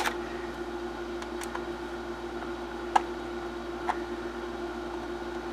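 Light metallic clicks of a screwdriver working at a drive in a metal computer case: one sharp click at the start, then three fainter ones spaced about a second apart, over a steady hum.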